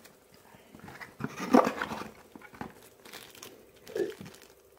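Packaging crinkling and rustling with light handling clicks as a keycap puller is taken out of a mechanical keyboard's box, loudest about one and a half seconds in and again briefly near the end.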